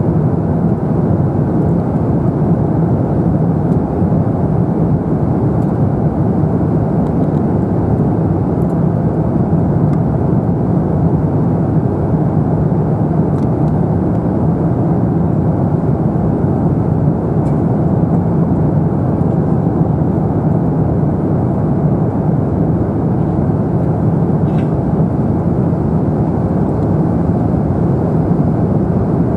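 Steady cabin noise inside an Airbus A350-900 airliner: engine and airflow rumble with a constant low hum and no change in level.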